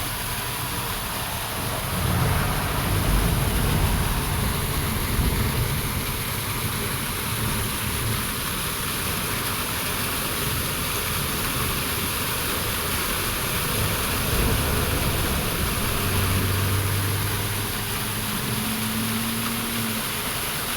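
Waterfall: water rushing and falling in a steady, dense wash of noise with a strong low rumble. A brief low hum rises through it about three quarters of the way in.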